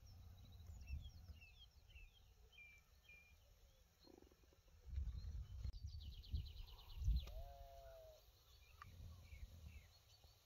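Small birds calling faintly: a run of short, high, falling chirps, then a rapid high trill about six seconds in, followed by a short, lower call. Wind rumbles on the microphone in gusts underneath.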